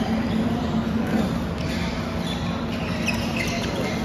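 Badminton doubles rally on an indoor court: sharp racket strikes on the shuttlecock and short shoe squeaks on the court floor, over a steady low hum and faint hall chatter.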